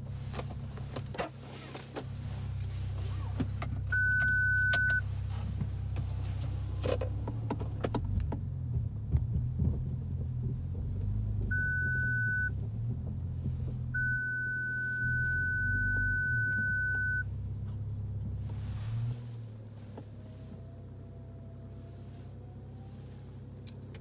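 BMW 4 Series engine running at low revs while reversing, with the parking-sensor warning sounding a steady high beep. It gives a one-second tone about four seconds in, another near twelve seconds, and then an unbroken tone of about three seconds, the signal that an obstacle is very close behind. A few knocks and clunks sound from inside the cabin in between.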